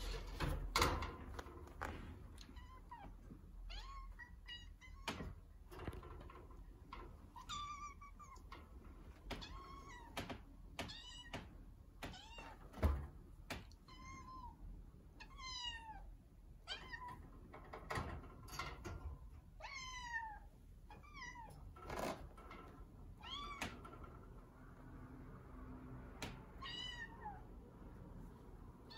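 A kitten meowing over and over, short high cries that fall in pitch, one every second or two: crying to be let out of its cage. Sharp knocks and thuds come between the cries, the loudest about halfway through.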